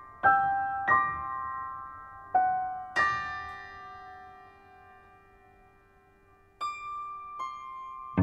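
Grand piano sounded partly from inside the case, the pianist's hands on the strings: single high notes struck one at a time, each left to ring and fade. After four notes the sound dies away to a long pause, then two more notes sound near the end.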